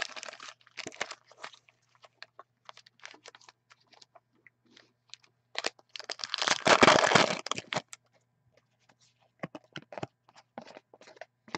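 Foil trading-card pack wrappers crinkling and tearing as hockey card packs are opened by hand. There is a loud stretch of tearing and crinkling about six seconds in, followed by softer clicks and rustles of cards being handled.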